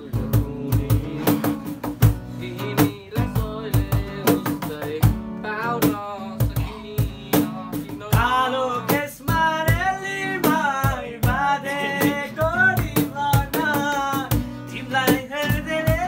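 Acoustic guitar strummed in a steady rhythm with young men's voices singing along; the singing comes through most strongly from about eight seconds in.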